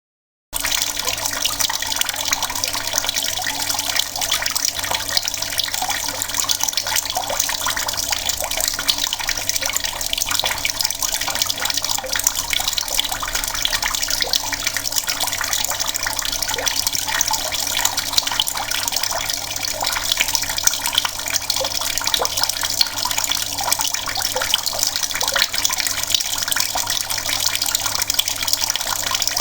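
Mains water running steadily from an outdoor tap, a continuous splashing with many small crackles.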